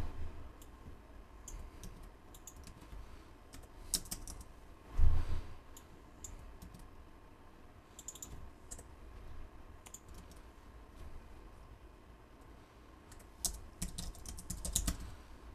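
Computer keyboard typing, irregular keystrokes in short runs, with a denser burst of keys near the end. A brief low thud about five seconds in is the loudest single sound.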